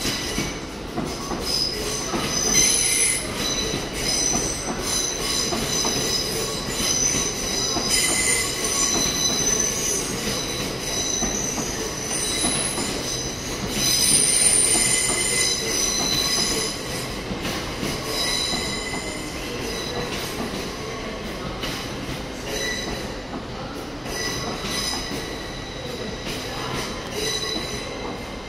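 LNER Hitachi Azuma train rolling slowly past, its wheels squealing on the rails: several high-pitched squeals that come and go over the steady rumble of the wheels.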